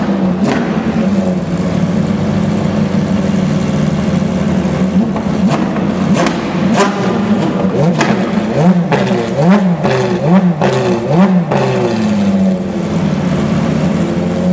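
Ferrari XX-programme race car's V12 engine idling with a few sharp cracks over it. About two-thirds of the way through it is blipped in about five quick revs, each rising and falling, then it settles back to idle.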